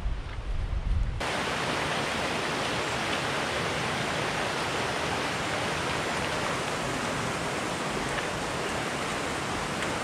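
Wind buffeting the microphone for about a second, then, after a sudden change, the steady rush of a fast-flowing mountain stream cascading over rocks.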